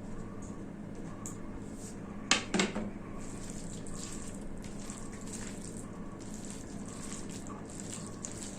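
Hand mixing rice with mutton curry on a plate: wet squelching and crackling that go on through most of it, with two or three sharp knocks about two and a half seconds in, over a steady low hum.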